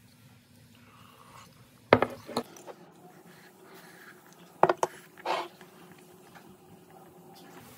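Metal spoon clinking against a ceramic mug of soup and the mug knocking on a desk: a pair of sharp clinks about two seconds in, then a few more knocks around five seconds in.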